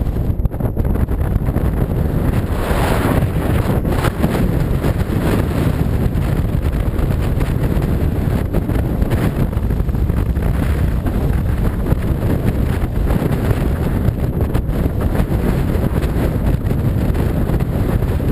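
Wind rushing over and buffeting a small camera microphone while skiing down a snowy slope: a steady, loud rumbling noise with no clear pattern.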